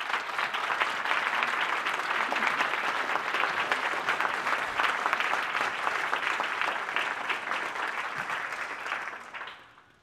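Audience applauding: dense, steady clapping from a roomful of people that dies away near the end.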